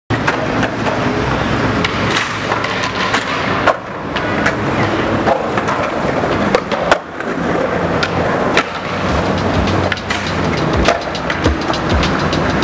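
Skateboard wheels rolling over concrete, with frequent sharp clacks of boards and trucks striking the ground.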